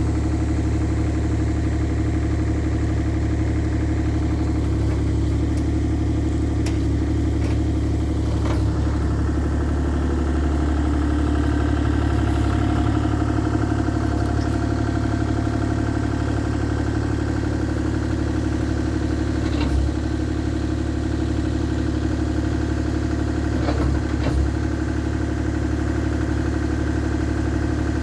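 Bobcat E35i compact excavator's diesel engine running steadily, with hydraulic whine over it. A few short metallic clanks come at intervals: about a quarter of the way in, around two-thirds in, and again a little later.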